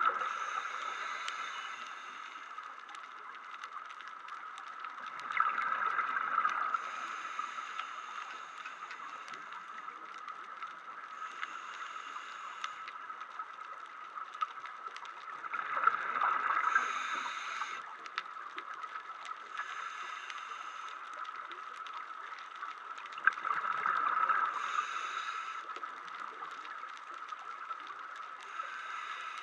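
A diver's scuba regulator heard through the underwater camera: four bursts of exhaled bubbles gurgling several seconds apart, with shorter hisses of breathing in between, over a steady faint tone.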